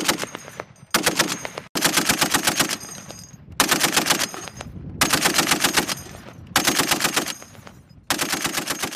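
M2 Browning .50 caliber heavy machine gun firing belt-fed in short bursts, about seven bursts of rapid, evenly spaced shots, each trailing off in echo before the next.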